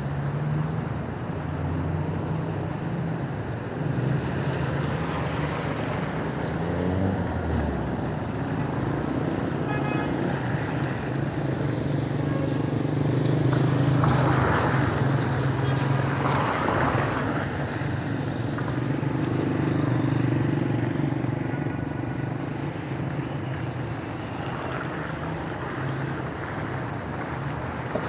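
Street traffic on rain-wet roads: car engines running with a low steady hum, and tyres hissing on the wet asphalt as cars pass, loudest about halfway through.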